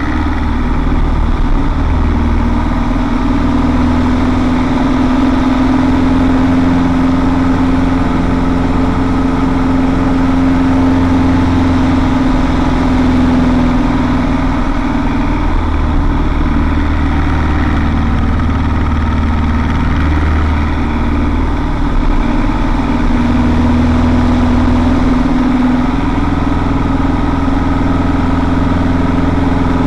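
Drone of a CAP 10C's four-cylinder Lycoming aerobatic engine and propeller, heard inside the cockpit. The engine runs continuously at high power, and its pitch rises and falls slightly through the aerobatic figures.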